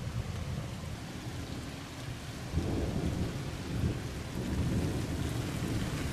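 Heavy rain pouring down in a thunderstorm, with a low rumble of thunder under it that swells louder about two and a half seconds in and keeps rolling.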